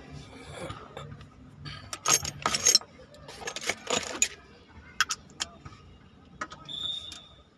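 Metal parts or tools clinking and rattling: a burst of clatter about two seconds in, then a few separate sharp clicks.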